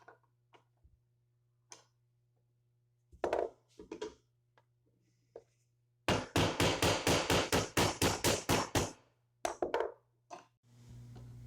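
Hand tools being worked on a scrapped Nissan oil pump as it is taken apart: scattered clicks and metal knocks, then about three seconds of even, rapid strikes, some four a second, followed by a few more knocks.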